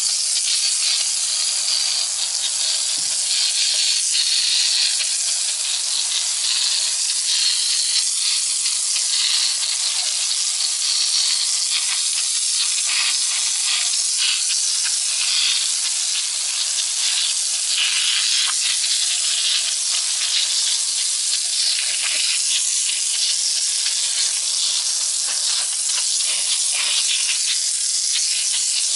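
Water jet from a garden-hose sweeper nozzle spraying onto a brick wall: a steady hiss.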